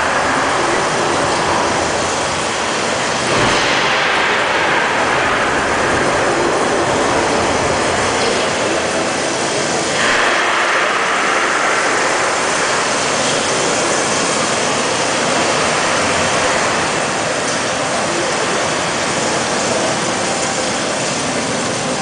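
Thunderstorm: rain pouring in a steady, loud hiss, with low thunder rumbles swelling about three and a half seconds in and again about ten seconds in.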